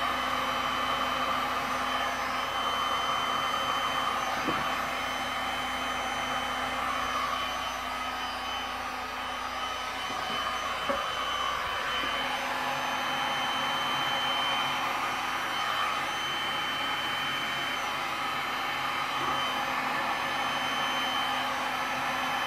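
Electric heat gun running steadily, its fan blowing with a thin high whine, as it is passed over wet epoxy resin to heat the pour. A light knock about 11 seconds in.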